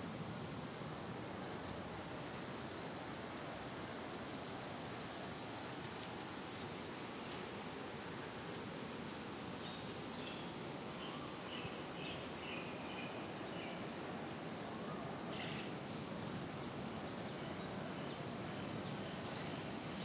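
Steady outdoor ambience: a continuous even hiss with a thin, steady high-pitched whine over it, and short bird chirps scattered throughout, most of them bunched together about halfway through.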